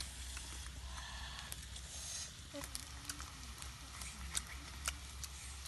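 Snake pieces frying in a wok over a wood fire: a faint sizzle with several sharp clicks scattered through, as a spatula stirs the meat against the pan.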